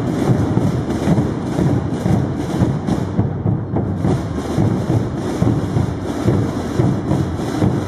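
Massed drums and bass drums of a Holy Week brotherhood's drum corps playing together. Many overlapping beats merge into one continuous, dense, low rumble.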